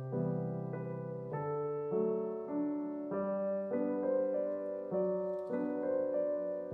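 Solo piano background music, with a new chord roughly every second over held low bass notes.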